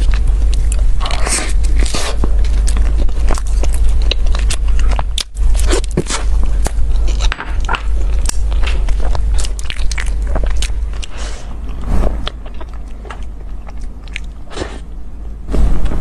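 Close-miked biting and chewing of a fried pastry, with dense wet crunching and mouth clicks that thin out to quieter chewing for the last few seconds, over a steady low hum.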